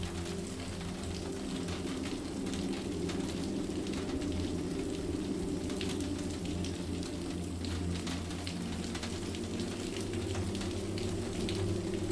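Steady rain falling on a surface: an even hiss dotted with the ticks of individual drops, over a low steady drone.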